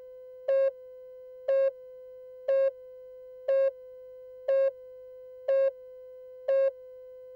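A steady electronic tone with a much louder short beep sounding over it about once a second, like a countdown or test signal.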